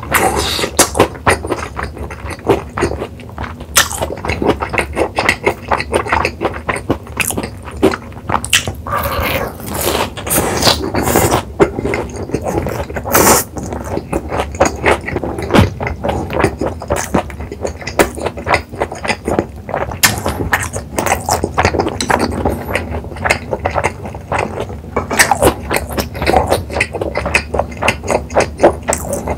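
Close-miked mouth chewing a mouthful of fried cheese pork cutlet: continuous wet chewing with many small clicks and smacks.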